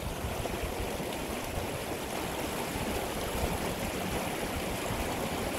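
A small mountain river's water rushing steadily.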